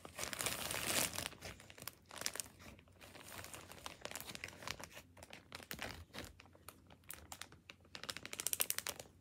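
Clear plastic zip-top bag crinkling and rustling as clothing is stuffed into it by hand, with a quick run of sharp clicks near the end.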